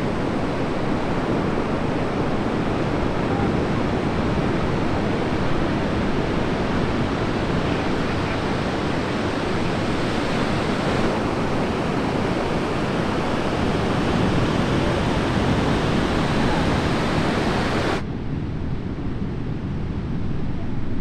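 Ocean surf breaking in a steady roar, mixed with wind on the microphone. About three-quarters of the way through it cuts off abruptly to a duller, lower noise.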